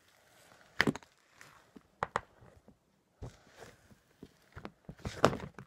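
Thick glitter slime being stirred in a plastic bowl: irregular sticky clicks and knocks of the spoon or spatula against the bowl, the loudest about five seconds in.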